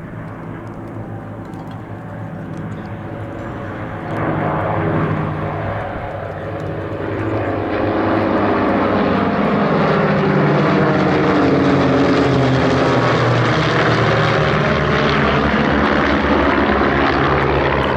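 Formation of Van's RV-8 light propeller aircraft, their piston engines droning as they come in on a display pass. The sound grows louder about four seconds in, then again and stays loud for the second half, the engine pitches slowly shifting as the aircraft go by.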